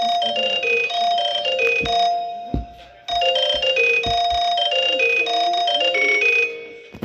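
Electronic MIDI ringtone: a short bell-like melody of chiming notes that repeats, breaking off and starting over about every three seconds, with a few low thumps in the middle.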